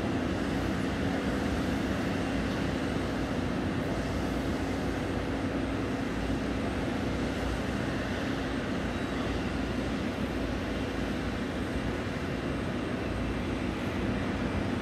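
Boeing 737-800 taxiing at a distance, its CFM56 jet engines at idle: a steady hum over a low rumble.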